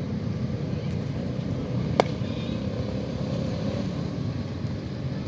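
A single sharp crack about two seconds in, a cricket bat striking the ball in net practice, over a steady low rumble of background noise.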